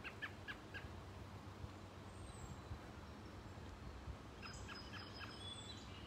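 American robin calling: a quick run of short high notes in the first second, and another run about four and a half seconds in.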